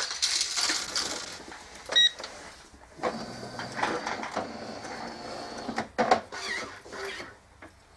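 Plastic parts of an automatic coffee machine being handled and clicked into place, with a short high ringing tone about two seconds in.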